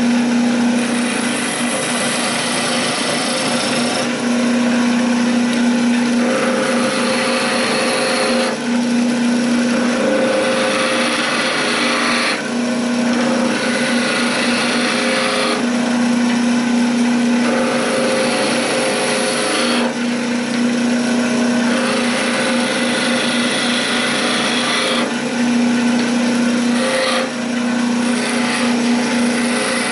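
Wood lathe running with a steady hum while a hand-held turning chisel shaves the spinning wooden spindle. The cutting comes in repeated passes a few seconds long, the rasping noise swelling and easing between them.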